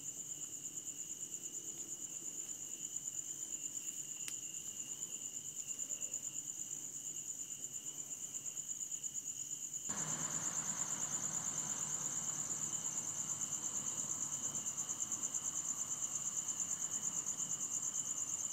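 Insect chorus: a high, fast-pulsing trill with a fainter, lower trill beneath it, both steady. About ten seconds in, a low rushing background noise rises underneath.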